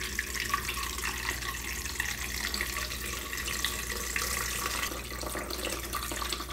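Tap water running in a steady stream into the humidifier's 3.5-litre water tank as it is filled.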